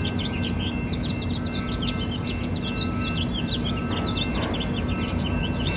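Many small birds chirping rapidly and continuously, over the steady low rumble of an approaching Metrolink F59PHI diesel locomotive.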